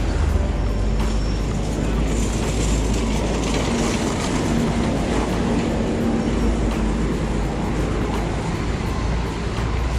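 Steady rumble and wind noise from riding a bicycle through city streets, with motor traffic running alongside.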